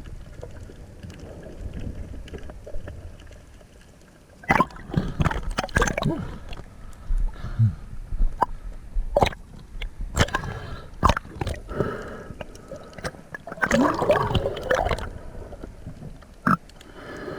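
Water sloshing and gurgling close to the microphone, broken by many sharp knocks and clicks, busiest near the end.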